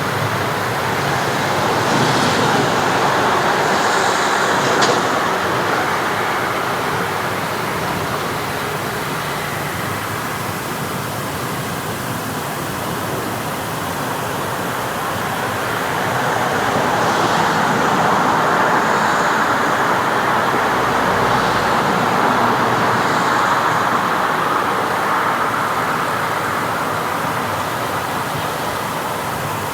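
Street traffic ambience: a steady wash of road noise from passing cars, swelling twice as vehicles go by, near the start and again past the middle.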